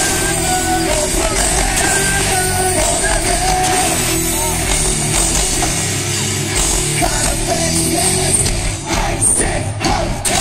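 Hard rock band playing live and loud, electric guitar over drums and bass, with some singing.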